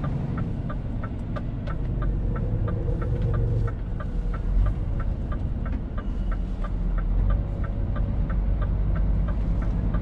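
Scania R450 truck's 13-litre six-cylinder diesel running under way, heard from inside the cab as a steady low rumble with road noise. A steady ticking of about four ticks a second runs over it.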